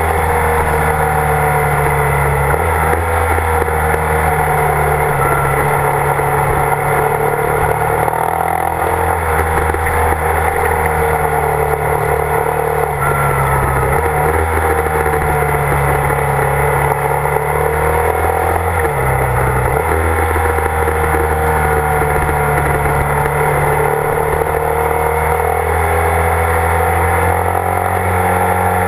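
Motorcycle engine running under way, its pitch rising and falling with the throttle and dipping briefly a few times, with steady road and wind noise.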